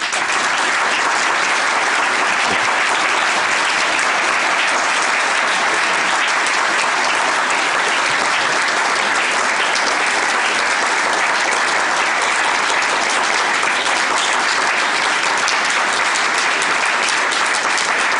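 Audience applause, steady and sustained, starting suddenly right after a speech ends.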